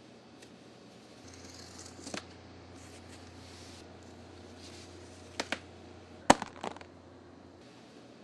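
A blade cutting into packaging: faint scraping, then a few sharp clicks and taps, the loudest about six seconds in.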